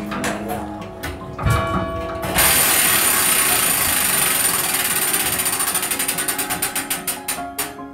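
Mechanical tower clock's striking train running, its spinning vane fly and gears giving a fast, dense clatter that starts suddenly about two and a half seconds in. The strokes then slow into separate ticks and die away near the end as the train winds down.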